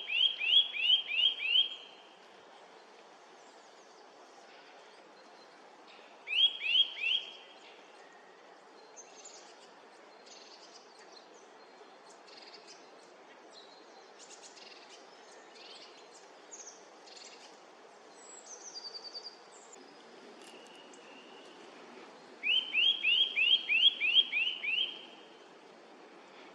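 Great spotted woodpecker giving fast series of sharp, repeated calls, about seven a second, in three bouts: one at the start, a short one a few seconds later, and a long one near the end. Fainter, higher chirps of small birds come in between.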